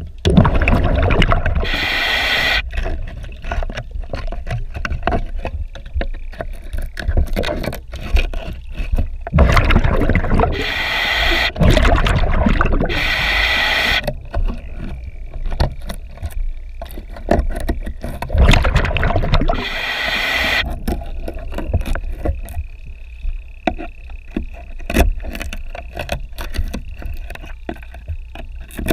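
Underwater scraping of a boat's slotted hull intake grate with a hand scraper: many short, quick strokes of the blade on the grate and hull. Several times a diver's breathing regulator sounds over it, each exhalation a bubbling rush lasting about a second.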